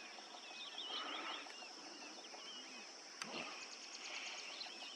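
Small birds chirping and twittering over a steady high insect drone, with one brief, faint low grunt from a hippopotamus a little past the middle.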